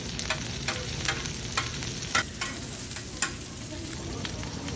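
Jeon (Korean savoury pancakes and meatballs) frying in oil on a griddle: a steady sizzle with irregular sharp clacks over it.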